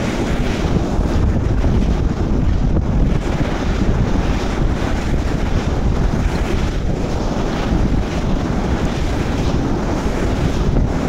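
Strong wind buffeting the microphone, a steady rumbling roar, with surf from the sea washing behind it.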